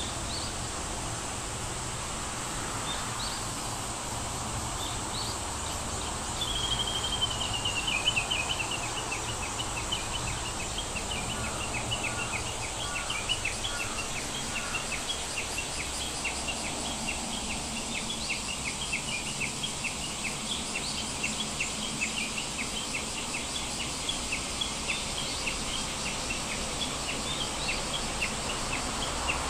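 Birds chirping over a steady high hiss: a quick descending trill about six seconds in, then a long run of short, evenly repeated chirps.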